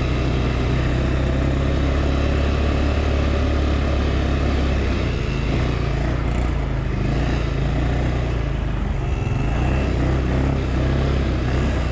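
A 200cc ATV engine running steadily under way, with its note easing down slightly about halfway through.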